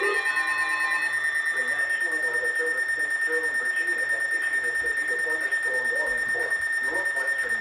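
A steady high-pitched electronic tone on an emergency alert broadcast, with a faint garbled, voice-like warble underneath. A rising sweep and other alarm tones cut off about a second in, leaving the single tone.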